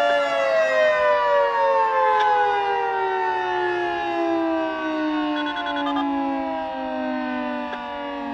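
Outdoor warning siren sounding a two-note chord, winding down: both tones slide steadily lower in pitch as it slows.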